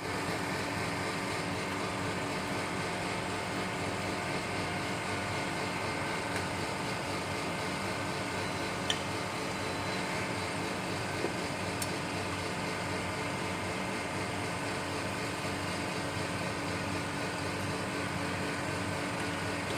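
Steady mechanical hum of running workshop equipment, with a couple of faint clicks about midway.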